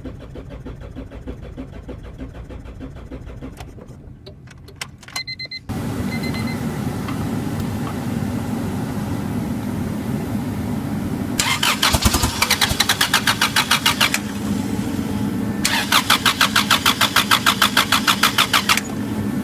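Honda B20Z2 four-cylinder engine being cranked over by its starter without catching, in several tries. The first try is weak and uneven, then there are a few short beeps. After a sudden steady hum comes in, there are two longer spells of even cranking of about three seconds each. The engine will not fire because the spark plug wires are out of firing order.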